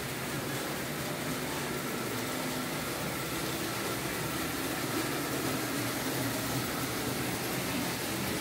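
Märklin H0 model trains running on the layout: a steady mechanical hum of small electric motors with wheels rolling on metal track.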